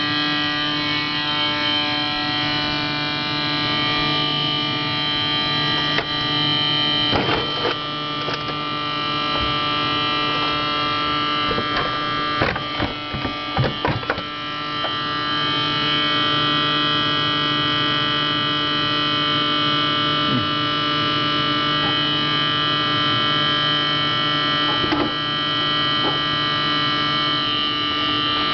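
GE refrigerator making a steady, irritating buzzing hum with many overtones, an abnormal noise that keeps coming back. A few short knocks or clicks come about a quarter to halfway through.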